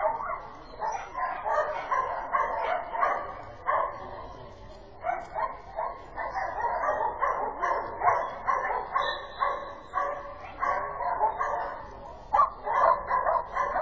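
A dog barking in a long run of short, quick barks, with a couple of brief pauses.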